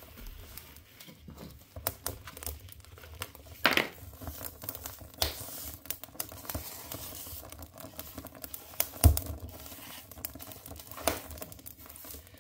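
Wood fire crackling and popping in a wood stove's firebox: irregular small snaps, with one louder low thump about nine seconds in.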